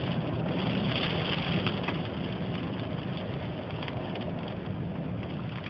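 Steady outdoor storm noise: wind on the microphone over a continuous low rumble, with a few faint ticks.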